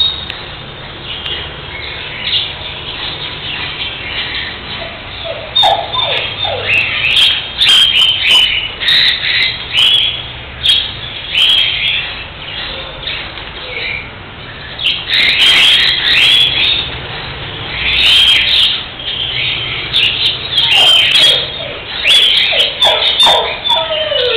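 Cockatiel chirping: after a few quiet seconds, runs of short chirps, many sliding down in pitch, come in clusters again and again.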